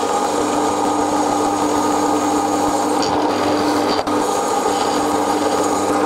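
Drill press running steadily as its twist bit cuts slowly into a broken-off steel stud in an exhaust manifold, drilling it out. A constant motor hum sits under the scraping of the cut.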